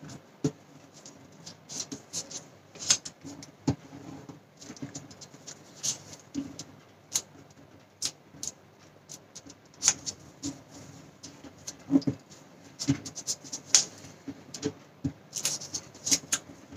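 A small sheet of paper being folded and creased by hand, giving irregular rustles and small clicks and taps.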